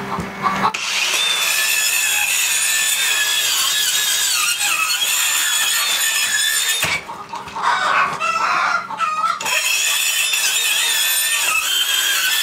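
Small 4.5-inch circular saw cutting through 7/16 OSB floor decking with a steady high whine. It starts just under a second in, stops for a couple of seconds about seven seconds in while chickens cluck, then cuts again.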